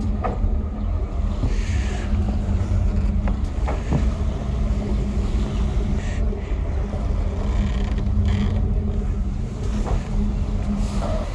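Twin 454 big-block V8 inboard boat engines idling steadily with a low hum, with wind on the microphone and a few light knocks and rustles as someone climbs aboard.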